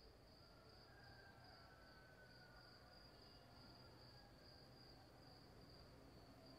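Cicadas droning faintly: a steady high-pitched hum with a slight even pulse, over a low background rumble.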